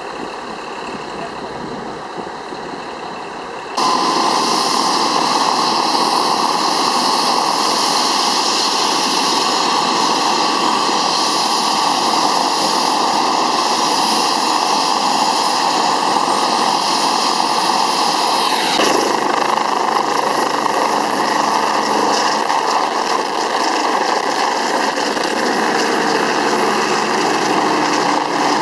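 Air ambulance helicopter's turbine engines and rotor running on the ground. About four seconds in the noise jumps suddenly louder and stays steady as the helicopter runs up and lifts off.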